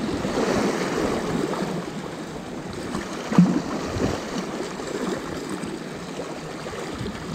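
Sea swell washing and surging over rocks, a steady rush of water, with one short low bump about three and a half seconds in.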